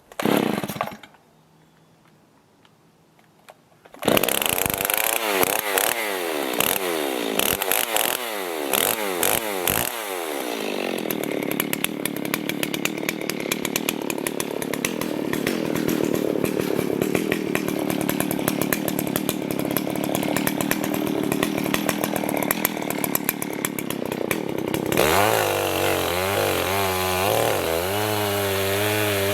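Two-stroke chainsaw. A short burst comes in the first second, and the saw starts about four seconds in and is revved several times. It then runs steadily under load while cutting into a leaning tree to fell it, and drops to a lower, wavering note about 25 seconds in.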